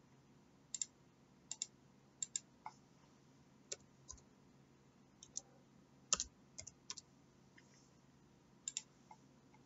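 Computer mouse and keyboard clicks: a scattering of faint, sharp single clicks and quick pairs over a faint low hum.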